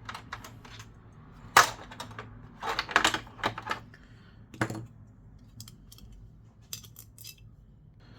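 Sharp clicks and knocks of tools and plastic parts as a PS5 Slim console is taken apart. There is a loud click about a second and a half in, a quick cluster around three seconds and another knock near five seconds, then a few light ticks.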